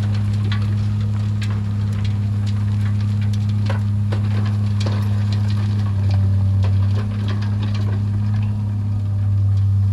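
Heavy construction machine's engine running steadily with a low hum that dips slightly in pitch about six seconds in, with many scattered clicks and crackles on top.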